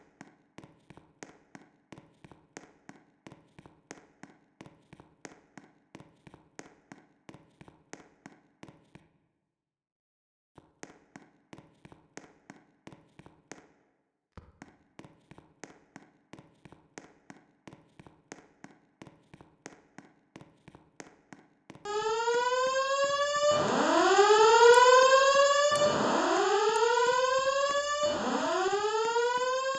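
Simplex fire alarm system in alarm: a faint, rapid pulsing, about two or three pulses a second, with two brief gaps. After about twenty seconds it gives way to loud rising whoop tones from the alarm speakers, repeating about every two seconds, the evacuation tone played between voice messages.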